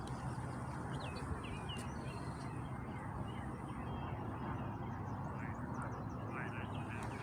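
Birds chirping and calling, with short whistled chirps and a few trilled calls, over steady background noise.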